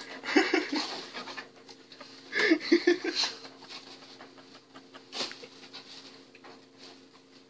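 Great Pyrenees dog making short huffing, grumbling play sounds in two bursts of about a second each, the second about two seconds after the first.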